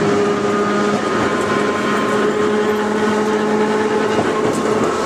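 Kotoden 5000-series electric car No. 500 running along the track, heard from inside the car: a steady whine from its nose-suspended traction motors and gears over the rumble of wheels on rail.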